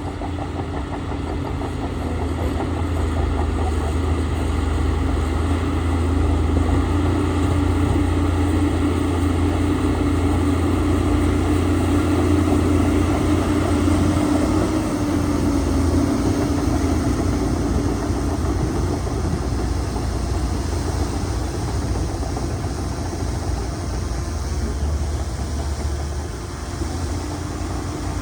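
Heavy diesel engine of a bulldozer running steadily under work. It grows louder about two seconds in and eases off somewhat in the last third.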